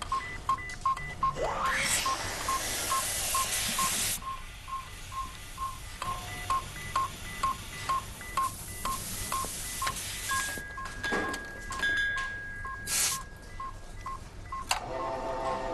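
Electronic telephone-line tones: short beeps repeating about twice a second, with a rising sweep about two seconds in, stretches of hiss, and a steady high tone from about ten to fourteen seconds in.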